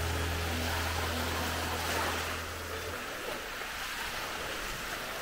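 Small waves breaking and washing up a sandy shore in a steady hiss. A low held note of background music ends about three seconds in.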